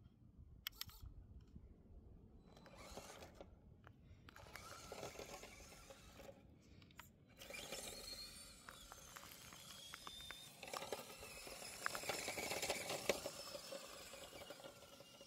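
Small 1/24-scale RC crawler driving in second gear: faint crunching of its tyres over gravel with a light motor and gearbox whine, loudest a little before the end.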